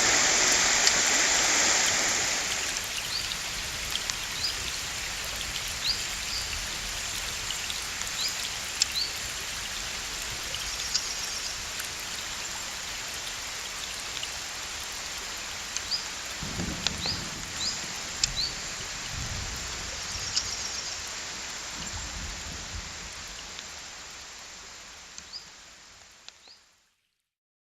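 Heavy rain falling steadily, with drops ticking and a louder rush of water in the first two seconds. Short high chirps come through now and then, and a few low rumbles sound in the middle before the sound fades out near the end.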